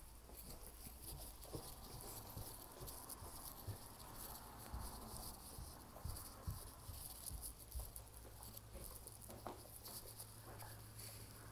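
Faint, soft, irregular footsteps of someone walking through a house, with light rustling from the hand-held phone. A low steady hum comes in about halfway through.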